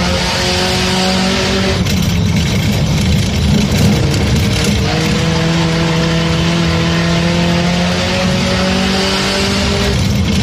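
Race car engine at full throttle, its pitch climbing slowly as it pulls, then lifting off about two seconds in. A rougher stretch follows before the engine pulls and climbs again and lifts once more near the end, in a lap's pattern of straights and corners.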